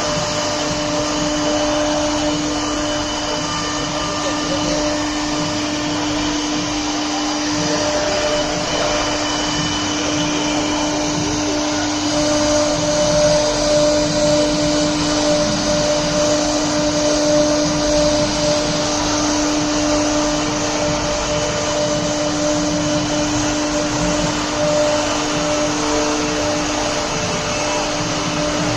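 CNC router spindle whining at a steady pitch while its bit cuts into MDF, with a dense rushing cutting noise under the tone. The noise grows slightly louder about halfway through.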